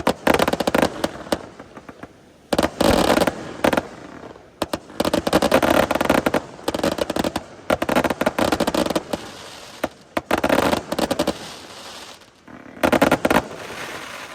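Aerial fireworks going off in about six clusters of rapid, dense crackling reports, each a second or two long with short quieter gaps between.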